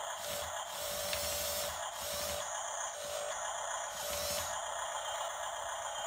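Toy RC bulldozer running, its small electric motors and plastic gearing whirring as it moves on its tracks. Over the whirring there is a steady pulsing sound about two to three times a second.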